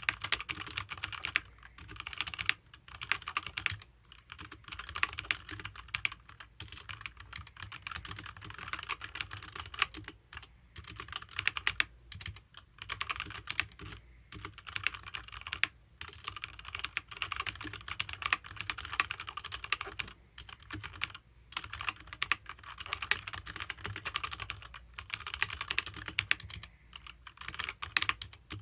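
Fast typing on a HyperX Alloy Origins mechanical keyboard with HyperX Red linear switches. Dense runs of key clacks are broken every few seconds by short pauses.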